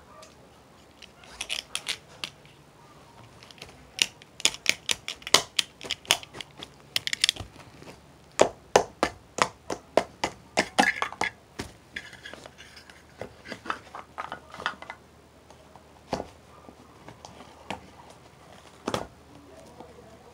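Drumming on a homemade drum set of household objects: irregular runs of quick sharp taps and clattering hits, some with a short ringing tail, thinning to a few single strikes near the end.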